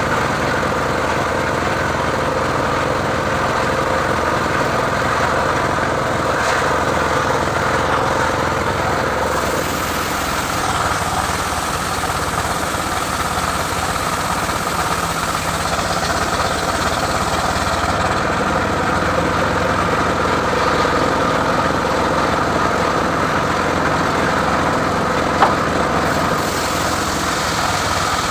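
Engine of a homemade mobile circular saw rig running steadily at an even speed, with one sharp tick near the end.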